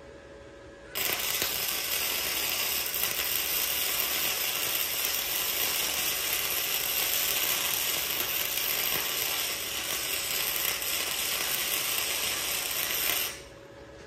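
Wire-feed welder running one continuous bead between two tack welds. The arc crackles steadily, starting abruptly about a second in and cutting off abruptly about twelve seconds later.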